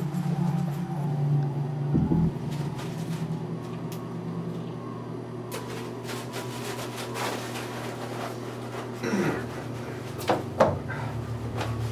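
Handling noises over a steady low hum: a knock about two seconds in, rustling as a small packet is handled in the hands around the middle, and a few sharp knocks near the end.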